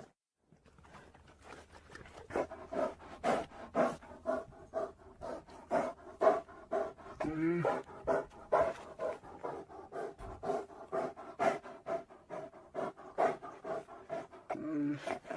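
Asian black bear giving a long run of short, breathy grunts, about three a second, some with a faint pitch, starting about half a second in.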